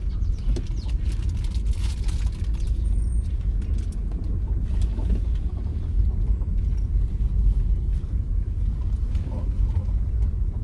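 Steady low rumble of a vehicle in motion, heard from on board.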